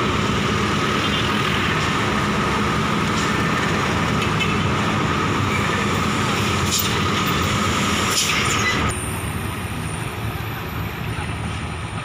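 Diesel coach engines idling, a steady rumble with a steady whine above it. About nine seconds in the sound drops a little and turns thinner.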